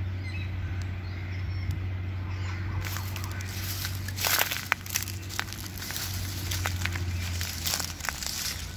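Dry leaf litter crackling and crunching in irregular bursts from about three seconds in, loudest a little after four seconds, over a steady low rumble.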